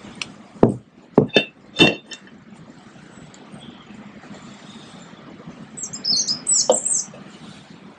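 Sharp metal clicks and knocks of brake parts being handled and fitted on a tractor's rear brake backing plate, five in the first two seconds and one more near seven seconds in. A bird chirps briefly, in quick high notes, around six to seven seconds in.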